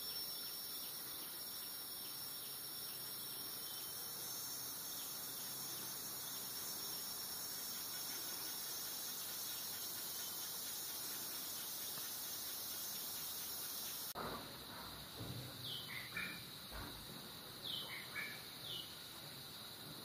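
Tropical rainforest insect chorus: a steady, shrill, high drone. About fourteen seconds in the sound changes abruptly, and several short falling chirps come in along with a few low thumps.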